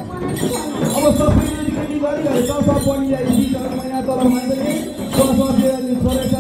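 Bells jingling and hand-held frame drums beating in rhythm as the dancers whirl, over a steady droning tone.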